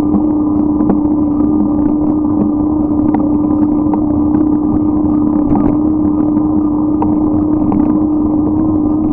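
Steady riding noise from a moving bicycle: a dense rumble under a constant droning hum, with scattered small clicks and rattles.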